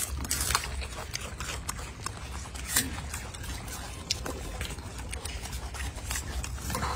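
Golden snub-nosed monkeys chewing and handling raw vegetables such as celery and apple: scattered crisp crunches and clicks, over a steady low rumble.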